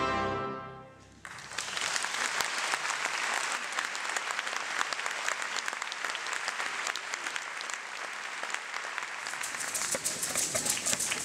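An orchestra's final chord dies away over about a second, then a concert-hall audience breaks into sustained applause.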